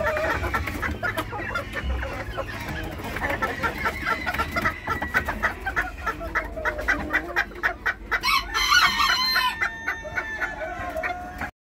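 A flock of chickens clucking continuously, with a rooster crowing about eight seconds in. The sound cuts out abruptly just before the end.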